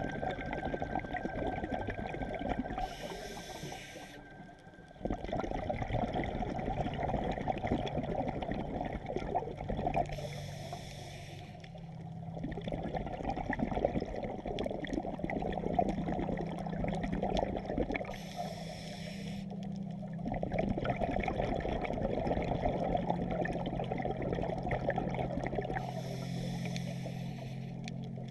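Scuba diver breathing through a regulator underwater: four inhalations, each a hiss of about a second and a half and roughly eight seconds apart, each followed by a long burbling stream of exhaled bubbles.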